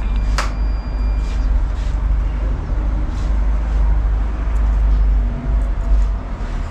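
Steady low rumble with a few short, sharp snips of hair-cutting scissors, one about half a second in and fainter ones after.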